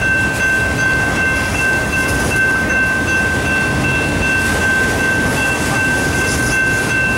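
Autorack freight cars of a passing train rolling by close up: a steady rumble and clatter of steel wheels on the rails, with a steady high-pitched tone over it.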